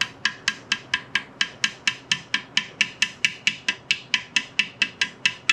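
Hammer rapidly tapping a brass drift, about four to five even blows a second, each with a short metallic ring. It is driving a shaft into a 1939 Ford transmission case until it reaches the reverse gear.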